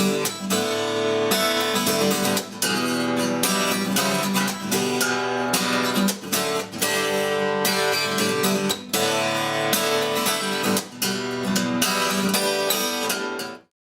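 Music led by a strummed acoustic guitar, stopping abruptly near the end.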